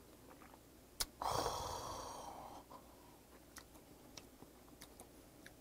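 A sharp click as a shot glass is set down on the table, then a long, loud breathy exhale that fades over about a second and a half, the satisfied gasp after a shot of soju. A few faint small clicks of chopsticks and chewing follow.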